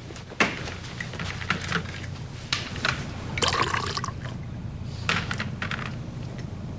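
Glass liquor bottles and a drinking glass clinking against each other and the drinks tray in a string of short knocks, with liquor being poured into the glass.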